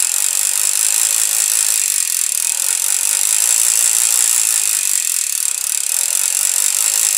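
Boat trailer winch set to unwind, its pawl clicking fast and continuously over the ratchet gear as the strap is run off the spool.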